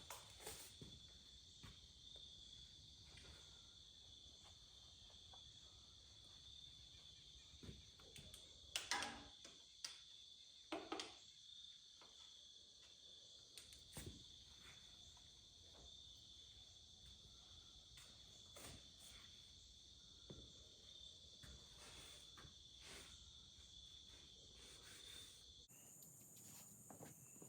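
Near silence with a faint, steady, high-pitched insect trill, which cuts off abruptly about two seconds before the end. A few light knocks come about nine, eleven and fourteen seconds in.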